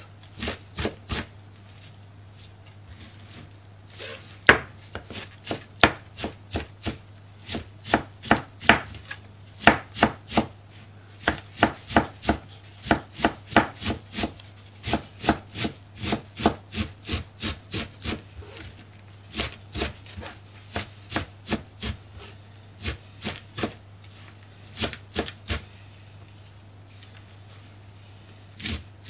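Kitchen knife chopping shredded cabbage on a plastic cutting board: a run of sharp knocks of the blade on the board, about two or three a second, with brief pauses near the start and near the end.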